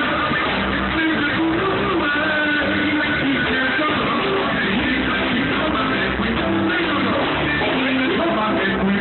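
Live reggae band playing, with guitar prominent over bass and drums, recorded through a phone's microphone that cuts off the highs.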